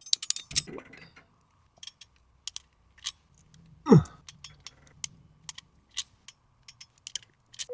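Irregular light clicks and knocks, like small mechanisms or tools being handled, with one short squeak that falls in pitch about four seconds in.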